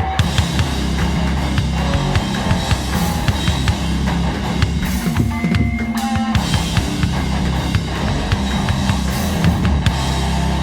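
Loud hardcore music in an instrumental passage without vocals, driven by a pounding drum kit with bass drum and snare hits over a heavy bass line.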